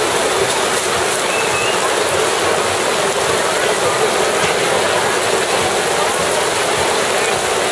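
Heavy rain pouring down and splashing on wet ground, a steady unbroken hiss.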